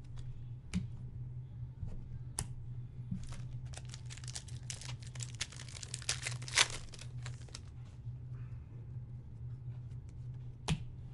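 Wrapper of a football card pack being torn open and crinkled by hand: a dense crackle for a few seconds in the middle, with a few single sharp snaps before and after. A steady low hum runs underneath.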